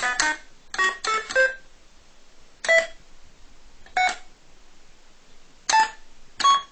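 TV talent show's failing-score sound effect: short electronic keyboard-like notes, a quick run of three in the first second and a half, then four single notes spaced a second or more apart, each a little higher than the last.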